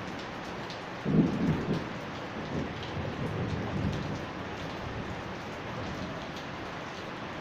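Steady rain falling, with a low rumble of thunder that breaks in about a second in and rolls away over the next few seconds.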